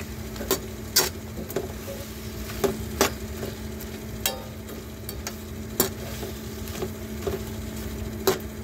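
Metal slotted spoon stirring peppers and tomatoes in sweet and sour sauce in a stainless pan, clinking sharply against the pan at irregular intervals about once a second over the low sizzle of the cooking sauce. Sugar has just gone in and is being stirred through.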